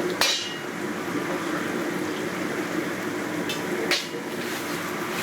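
Steady hiss and sizzle of water on a very hot wok over a gas flame. The water keeps skating about on a cushion of its own steam. Two sharp metallic clinks with a short ring come just after the start and about four seconds in.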